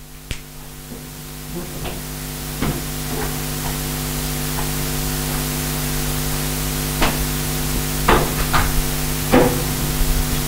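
Steady hum and hiss that rises in level over the first few seconds, with scattered clicks and short squeaks of an eraser wiping and a dry-erase marker writing on a whiteboard.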